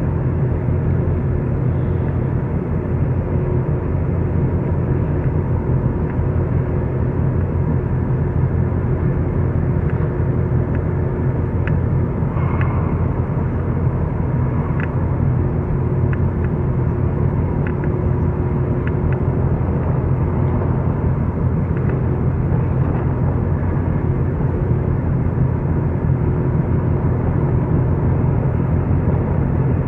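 Steady low engine rumble from the berthing container ship and its tug, with a faint steady hum above it. A few faint clicks come through in the middle.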